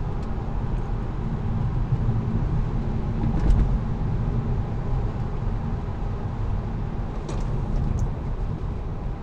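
Road and tyre noise inside a moving Tesla Model 3: a steady low rumble with no engine note, and a few faint ticks.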